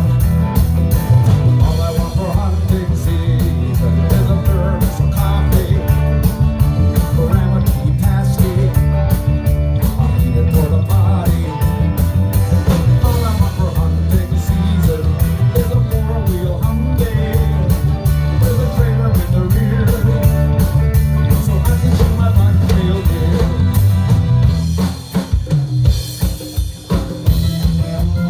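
Reggae band playing live: drum kit with rimshots, bass, guitars and keyboard over a steady beat. About 25 seconds in, the bass drops out for a few seconds, leaving sharp drum hits, before the full band comes back in.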